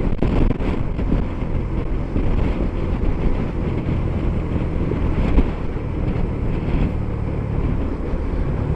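Strong wind rushing over a motorcycle helmet, heard from a microphone inside the helmet, over the steady hum of the motorcycle running at speed.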